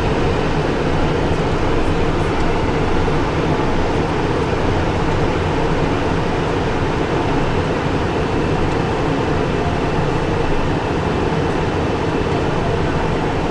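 Steady cockpit noise of a Cessna Citation Encore business jet climbing out: the even rush of air and engines, with no change in level.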